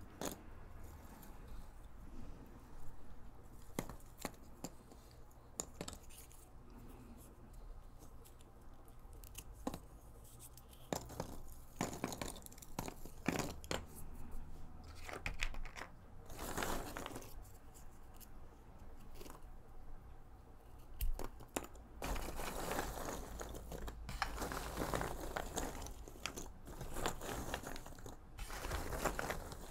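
Loose cardboard jigsaw puzzle pieces rummaged by hand and let fall back into a cardboard box lid: dry clicking and rustling in bursts. Sparse clicks at first, growing into near-continuous rummaging over the last several seconds.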